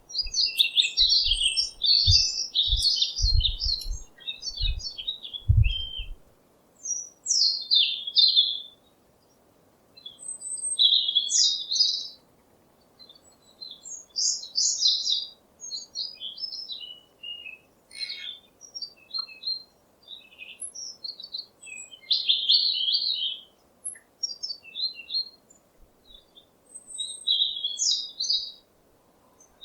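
Birds chirping and twittering in short runs of high notes with brief pauses between, some phrases overlapping. A few low thumps come in the first six seconds.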